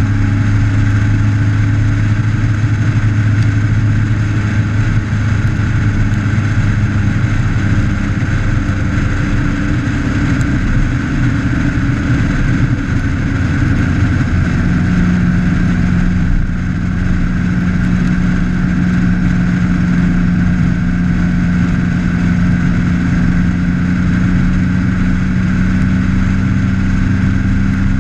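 Motorcycle engine running steadily at cruising speed, with wind and road noise, heard from a camera mounted on the bike's fairing. The engine note holds steady, shifting slightly about halfway through.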